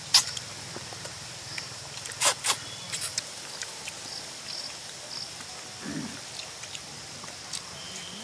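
Cooked spiny lobster shell cracking and snapping as it is broken apart by hand: a few sharp cracks in the first three seconds, then smaller clicks of handling the shell.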